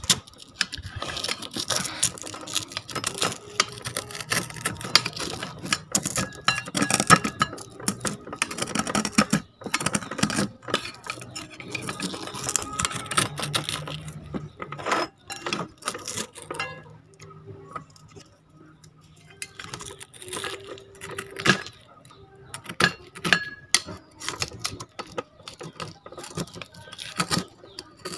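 Metal spoon scraping and clicking against a small metal pan as fried eggs are loosened from its bottom, in irregular bursts of scrapes and taps with a short lull past the middle.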